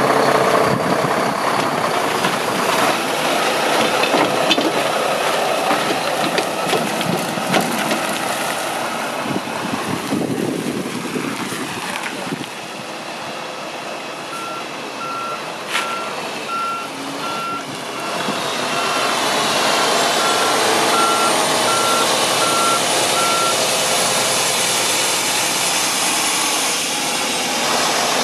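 A 2005 Mack CXN613 tandem-axle day cab tractor's diesel engine running as the truck moves about. About halfway through, a backup alarm starts beeping at a single pitch, about once a second, for around nine seconds while the tractor reverses. The engine gets louder near the end.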